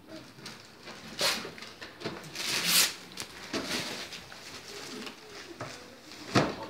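Gift wrapping paper rustling and tearing as a present is unwrapped, in several short bursts with a longer rip a little past two seconds in, and a sharp knock near the end.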